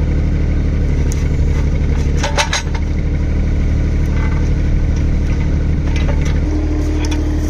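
Kubota mini excavator's diesel engine running steadily, with a few sharp metal clanks as its quick hitch picks up a small bucket by its pins. A steady higher tone joins the engine note near the end.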